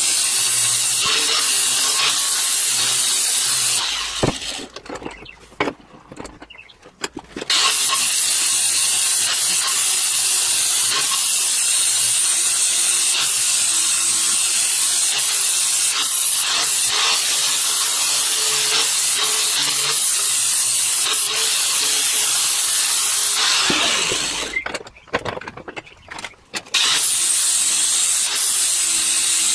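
Handheld angle grinder grinding the mushroomed steel edge of an old axe head, a steady harsh grind with a strong high hiss. It stops twice for about three seconds, about four seconds in and again near the end, then resumes grinding.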